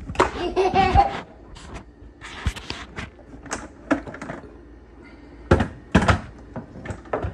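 Hard plastic blender parts knocking and clunking as a Ninja blender pitcher and its cups and lids are lifted and set down on the motor base and counter, with two loud clunks a little after the middle.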